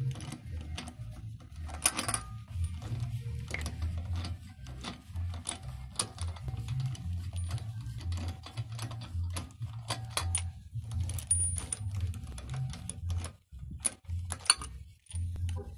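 Socket ratchet clicking in quick runs as lug nuts are spun off a car's front wheel, over a low steady hum.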